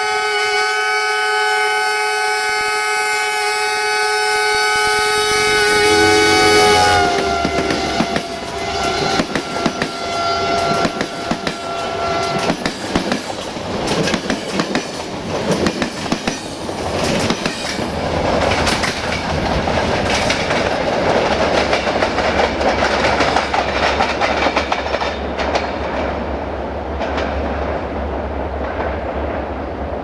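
Multi-tone air horn of a Romanian Sulzer diesel-electric locomotive, CFR 65-1300-6, held as it approaches, its chord dropping in pitch about seven seconds in as it passes. The passenger coaches then roll by, wheels clattering over the rail joints, easing off near the end.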